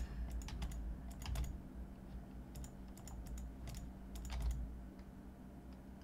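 Computer keyboard keys clicking in short, irregular clusters, with a low steady hum underneath.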